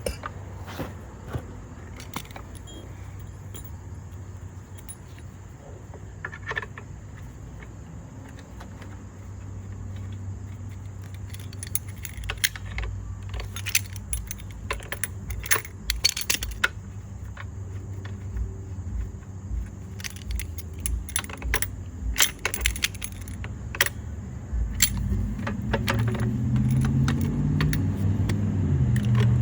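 Metal parts and tools clinking and clicking irregularly as a 3-ton floor jack is worked on by hand, over a steady low hum. A louder low drone builds up near the end.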